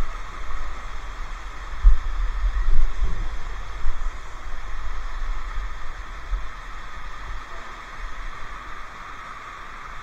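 Steady rush of a waterfall, with irregular low rumbling bumps of wind and handling on the microphone, strongest about two to four seconds in.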